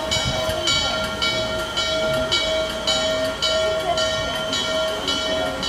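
Norfolk & Western 611 steam locomotive's bell ringing steadily, a little under two strokes a second, as the engine rolls slowly forward, with a low rumble underneath.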